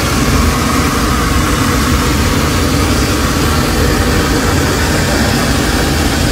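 Loud, steady roar of engine and rushing-air noise inside a Southwest Boeing 737 cabin, with the oxygen masks hanging down: the sign that the cabin has lost pressure.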